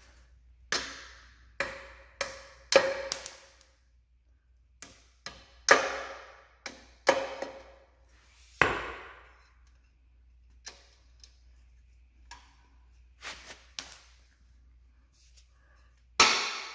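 Hammer blows on steel, about a dozen irregular strikes, each ringing briefly, knocking a plate loose from a Ford 8-inch rear axle assembly. The strikes come in clusters, with a longer gap around the middle.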